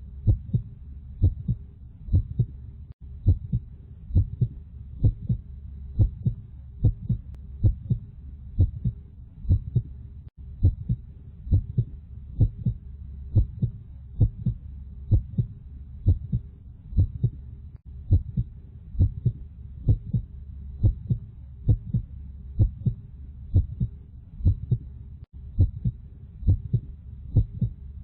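Heartbeat sound effect: a steady lub-dub of low paired thumps, about one beat a second, over a low steady hum.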